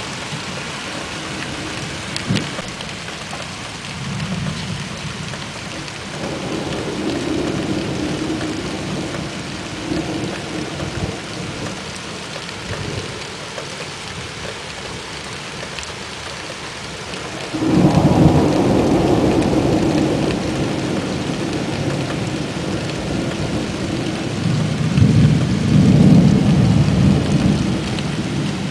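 Thunderstorm: steady rain hissing throughout, with low rolls of thunder in the first half. About 18 seconds in a sudden loud thunderclap breaks and rumbles on for several seconds, and another loud roll of thunder comes near the end.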